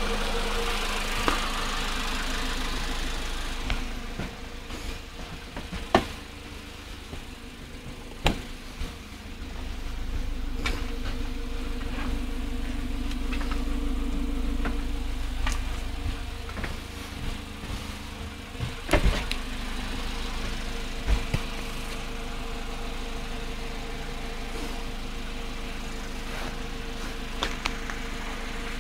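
Volkswagen Polo Sedan engine idling cold, with the knocking on a cold engine that is getting worse. A few sharper knocks or clicks stand out at irregular moments over the steady running, the loudest about two-thirds of the way through.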